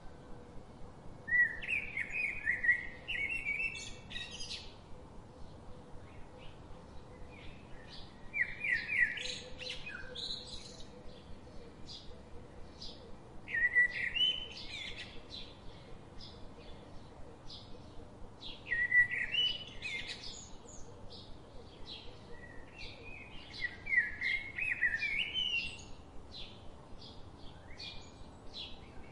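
Songbird singing in woodland: five short song phrases of quick notes, each two to three seconds long, about every five seconds, with faint short chirps repeating two or three times a second between them.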